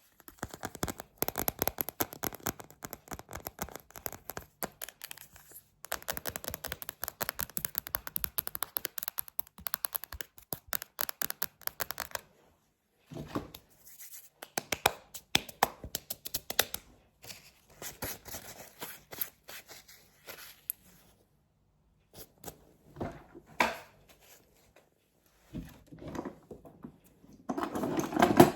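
Close-miked ASMR tapping and scratching: fast, dense taps for about the first twelve seconds, then sparser taps and scrapes broken by short pauses.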